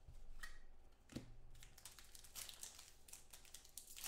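Faint crinkling of a foil-wrapped trading-card pack being handled and opened, a few light clicks at first and the crinkling getting busier from about a second and a half in.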